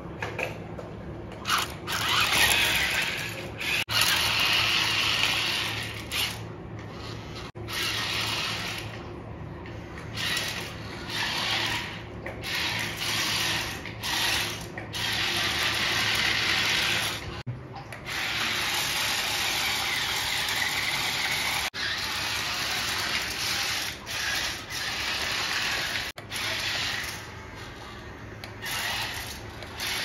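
Small electric motors and gearboxes of radio-controlled construction models whirring in repeated bursts, starting and stopping many times, with a longer run of several seconds in the second half.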